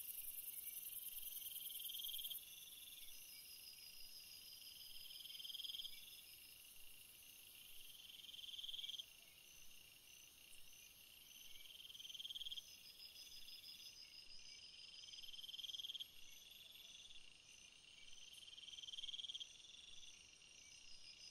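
Faint chorus of night insects, crickets among them. One trill swells louder and breaks off about every three seconds, over a steady high-pitched buzz.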